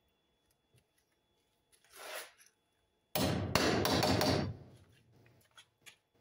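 Hammer blows on the top of a timber patio post where it meets the beam: a quick, loud run of knocks lasting about a second and a half, beginning about three seconds in, after a soft scrape.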